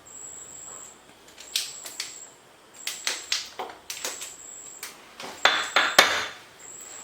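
A spoon clicking and tapping against the vessel, then scraping harder through the sauce near the end, as butter is stirred into freshly cooked cocoa chocolate sauce for a glossy finish.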